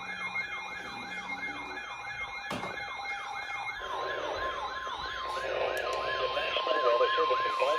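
Emergency alert sounding: a siren-like tone sweeping rapidly up and down about three times a second, joined about four seconds in by a steady high alert tone.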